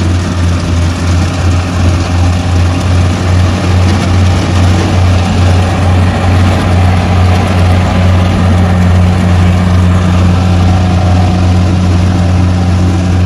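Diesel engine of a tracked rice combine harvester running steadily while it cuts and threshes: a loud, even low drone over a dense mechanical rush, pulsing slightly in the first few seconds.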